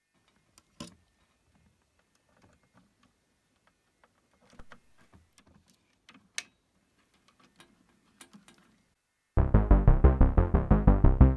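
Faint scattered clicks and knocks. About nine seconds in, an Arturia MatrixBrute analog synthesizer starts a loud, fast, evenly repeating low sequenced note pattern, run through an external Eurorack filter.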